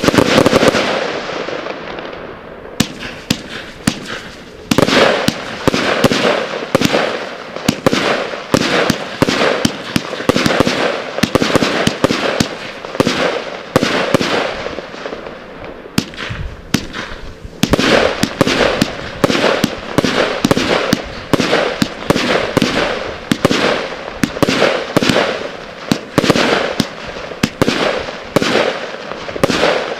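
Magnum Triple X 281-shot firework cake firing shot after shot in quick succession, launches and aerial bursts overlapping, with a short lull about sixteen seconds in before the barrage resumes.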